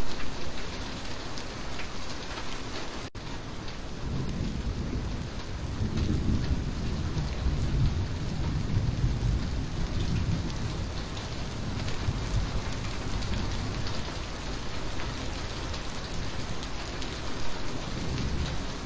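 Steady rain falling, with a low rolling rumble of thunder that swells about a third of the way in and fades back toward the end.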